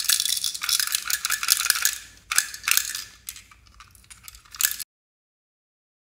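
Rattling and clicking of a small toy bus handled and turned over in the hands, in quick dense runs at first, then a few separate clicks. The sound cuts off abruptly about five seconds in.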